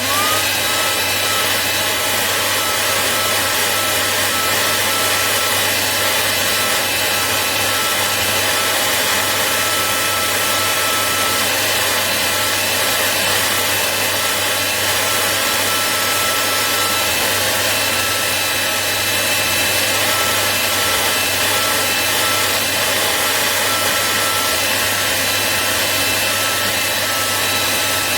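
Handheld hot-air blower switching on and running steadily, a fan hiss with a steady high whine, heating the phone's screen to soften its adhesive for removal.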